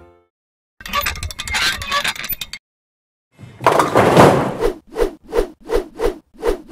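Scratchy sound effects: a crackling scrape about a second in, then a louder rush of noise followed by a run of short scratching strokes about three a second, a pen-writing effect over hand-drawn lettering.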